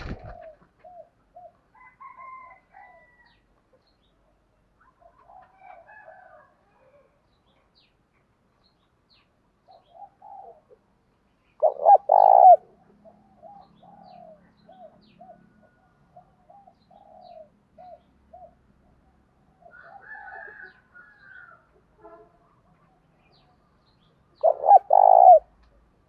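Spotted dove cooing: a loud two-part coo about halfway through and another near the end, with quieter short repeated notes in between.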